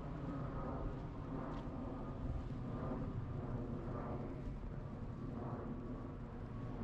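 Footsteps crunching through snow, with a steady low rumble underneath.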